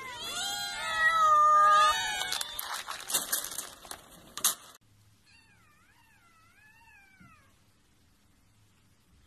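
Several cats meowing loudly at once, their calls overlapping. Then a rattling clatter of dry cat food pellets hitting and scattering over a wooden deck as the cats crowd in, which cuts off suddenly. After that, a kitten mews faintly, a thin wavering cry lasting about two seconds.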